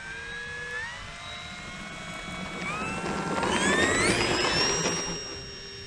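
E-flite Air Tractor 1.5 m RC plane's electric motor and propeller whining as it accelerates down the runway. The pitch steps up several times as the throttle is advanced, and the sound is loudest about four seconds in as the plane passes close by.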